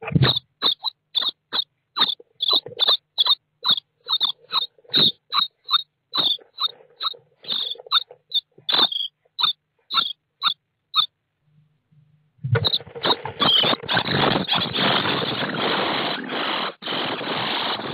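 Common starling nestlings begging inside a wooden nest box: a rapid series of short, high calls, about three a second. Then, after a brief gap, a continuous loud, harsh begging chorus with an adult starling in the box among them.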